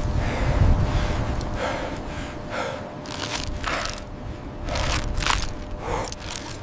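A person breathing hard in a series of short, sharp gasps, about seven in all, unevenly spaced, over a steady low rumble.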